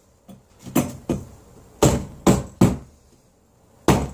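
A hammer tapping a shelf fitting into place on the wall, making a series of sharp knocks that each ring briefly. The taps come as a pair, then three quicker ones, then a pause of about a second before another run starts near the end.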